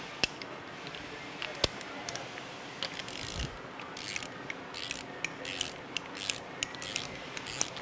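Ratcheting torque wrench clicking in short, irregular runs as the cam gear and crank gear bolts are tightened to 15 foot-pounds, the first pass of the gear bolts' torque sequence.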